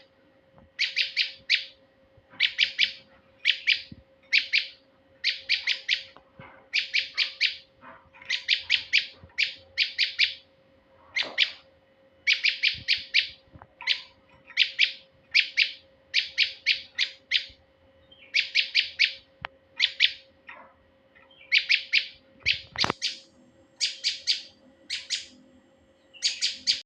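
Male prinia (prenjak) calling: short bursts of rapid, sharp chipping notes, repeated about once a second, used as a lure call. A faint steady hum lies underneath, and there is a single click near the end.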